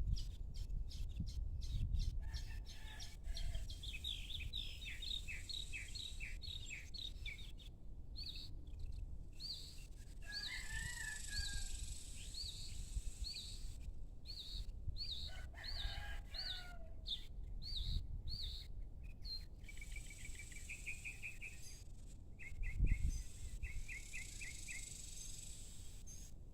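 Small birds chirping in long runs of quick repeated notes. A rooster crows twice, about ten seconds in and again a few seconds later. There is a low rumble, loudest a few seconds before the end.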